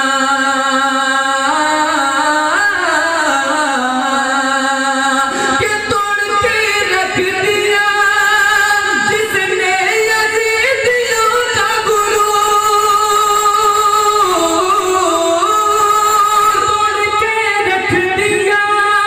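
A man singing a naat, an Urdu devotional praise poem, into a microphone in long held notes that slide and ornament between pitches. The melody climbs to a higher register about five seconds in.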